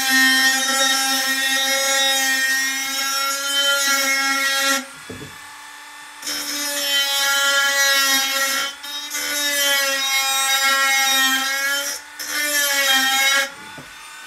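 Cordless Dremel rotary tool running with a steady whine and grinding hiss as it works the steel of a pole-lathe turning tool. It runs for about five seconds, stops for a second or so, starts again with two brief dips, and cuts off shortly before the end.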